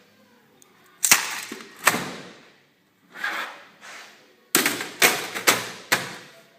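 A run of sharp clicks and knocks from desktop PC hardware being handled during a RAM upgrade. Two loud ones come about a second apart, then a softer pair, then four in quick succession about half a second apart.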